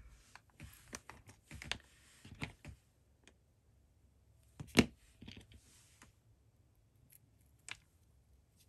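Small acrylic beads and metal spacers clicking against each other and the work surface as they are handled and threaded. A scatter of light clicks and rustles over the first three seconds, one sharp, loud click a little before five seconds in, and a couple of fainter clicks later.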